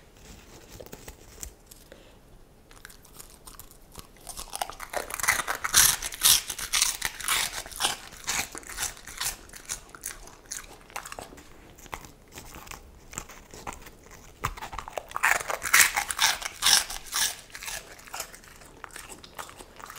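Samoyed dog crunching and chewing crisp puffed corn snacks close to the microphone. After a few quiet seconds, a dense run of crunching starts, eases off, then comes back strongly in a second burst near the end.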